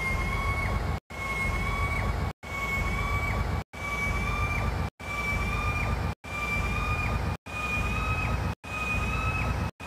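A chopped, repeating audio loop. A steady high whine with a weaker tone an octave below sits over a low rumble, cut by short dead gaps about every 1.3 s so it stutters. The whine dips at the end of each repeat and creeps slowly higher overall.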